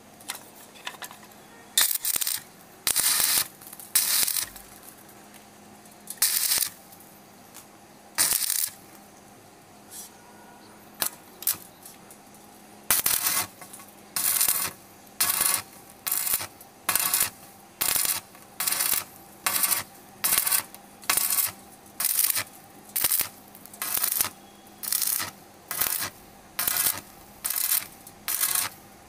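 Electric arc welder stitch-welding a mild steel pipe joint, the arc struck in short bursts of noise: a few irregular ones at first, then a steady run of about one a second from about halfway.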